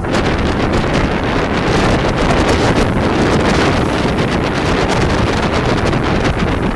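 Heavy wind buffeting the microphone of a rigid inflatable speedboat running at speed, mixed with the rush of water and spray off the hull.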